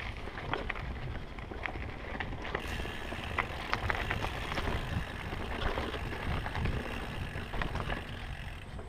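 Mountain bike rolling fast down a dirt forest trail: a steady low rumble from the tyres on dirt and roots, with frequent clicks and rattles from the chain and frame over the bumps.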